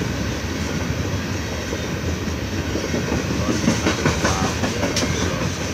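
Loaded coal hopper cars of a freight train rolling past, a steady rumble of steel wheels on rail with clacks over the rail joints. A few sharper clacks stand out in the second half.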